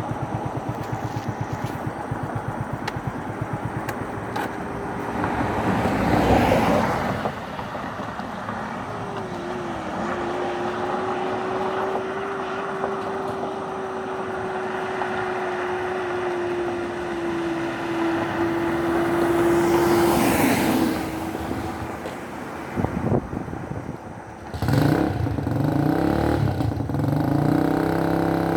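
A road vehicle driving: steady engine and road noise, with louder swells a few times.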